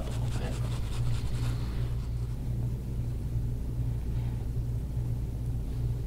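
A steady low hum, with faint soft rubbing sounds over the first two seconds.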